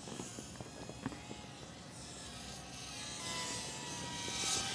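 Whine of a micro RC plane's small brushed electric motor and propeller in flight, shifting in pitch with throttle and growing louder in the second half.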